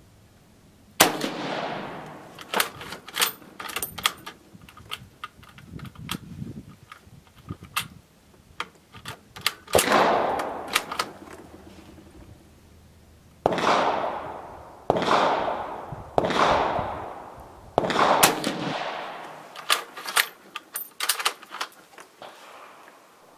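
Carcano M38 6.5mm bolt-action short rifle firing six shots, each with a long echoing tail. The first two are about eight seconds apart and the last four come about a second and a half apart. Between shots there are short bursts of small metallic clicks from the bolt being worked.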